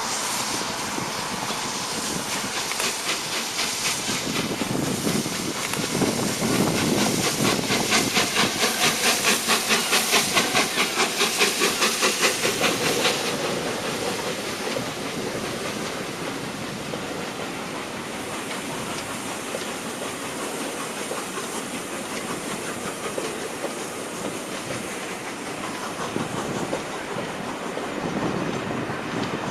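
Three-cylinder steam locomotive 60163 Tornado working hard: a rapid, even exhaust beat of about four beats a second over hissing steam, growing louder. About halfway through the beats stop sharply, leaving a steady rushing rumble of the train rolling by.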